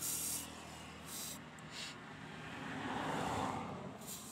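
Aerosol carburetor cleaner sprayed in short hissing bursts onto a fuel pump filter: one burst at the start, two brief ones just after a second in, and another near the end. A broader rushing sound swells and fades behind it around three seconds in.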